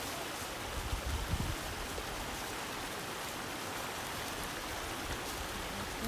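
A rushing forest stream tumbling over rocks: a steady hiss of water. There are a few brief low bumps about a second in.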